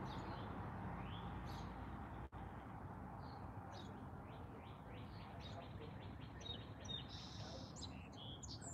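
Small birds chirping faintly over steady outdoor background noise. There is a quick run of short chirps from about three to seven seconds in, then a few higher held notes near the end.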